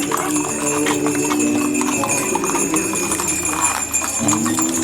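Hooves clopping with harness bells jingling, over music with long held notes.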